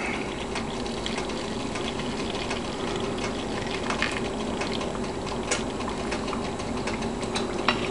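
Hot vinegar-and-sugar brine poured from a pot into a glass canning jar packed with chopped vegetables: a steady liquid fill with a few faint clicks.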